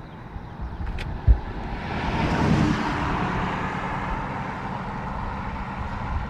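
A car driving past, its tyre noise rising about two seconds in and then slowly fading away. A brief knock comes about a second in.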